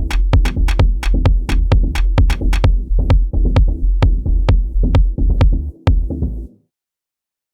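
Electronic drum beat programmed on Native Instruments Maschine 2: a deep, heavy bass under a steady pattern of crisp ticks. It cuts off suddenly about six and a half seconds in.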